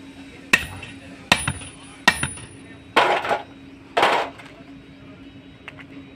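Hammer striking steel parts of a truck propeller-shaft universal joint three times, about three-quarters of a second apart, each blow ringing briefly, followed by two short, harsher clattering sounds. A steady low hum runs underneath.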